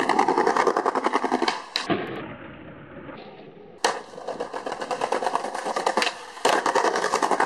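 Skateboard wheels rolling over the joints of paving stones, a fast, even run of clicks. It drops to a quieter stretch for a couple of seconds in the middle, then the clicking picks up again.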